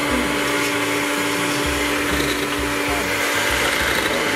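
Electric hand mixer running with a steady hum, its beaters whipping egg whites and powdered sugar into a foamy meringue.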